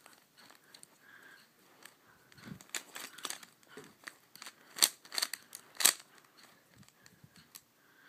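Plastic 3x3 speedcube being turned quickly by hand during a solve: irregular clicks and clacks of the layers snapping round. They come in quick bursts, thickest and loudest in the middle seconds.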